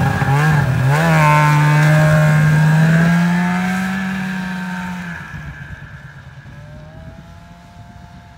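Snowmobile engine revved twice in quick blips, then opened up as the sled takes off, holding a high steady note. It fades steadily as the sled rides away across the snow.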